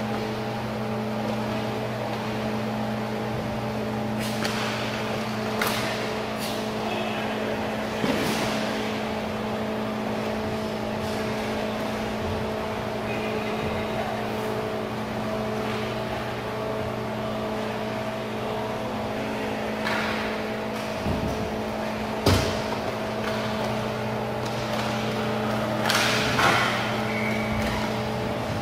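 A steady, even mechanical hum runs under the rink sounds of inline hockey play. A handful of sharp knocks and clacks, from sticks and puck striking each other or the boards, cut through it, the loudest about three-quarters of the way in.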